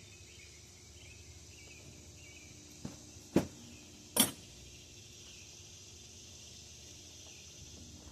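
Three short, sharp clicks of hand tools or parts knocking against metal on the engine, the loudest two a little under a second apart in the middle, over a steady faint high hiss of insects.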